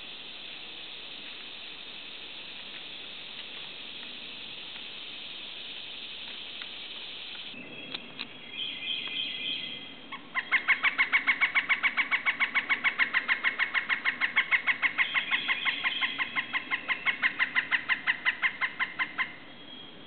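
Pileated woodpecker calling: a long, rapid series of loud, evenly spaced notes, about seven a second, starting about halfway in and stopping shortly before the end. A steady high hiss fills the first half.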